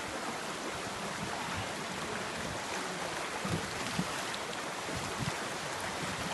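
Steady rushing of flowing water, with a couple of faint low knocks about halfway through.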